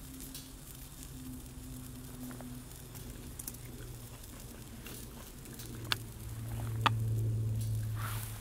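Small twig fire in a camp stove crackling, with scattered ticks and two sharp pops about six and seven seconds in. Under it runs a low steady hum that grows louder for a couple of seconds near the end.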